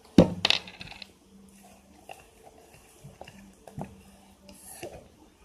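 Small hard objects clattering: a quick cluster of sharp clacks about a quarter second in, then a few faint knocks later.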